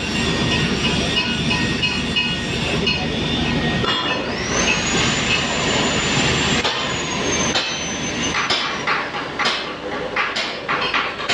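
Stick (SMAW) welding on steel pipe: the arc crackling and hissing steadily. About four seconds in, a high whine rises and holds for about three seconds, then falls away. From about eight seconds on come sharp taps, several a second.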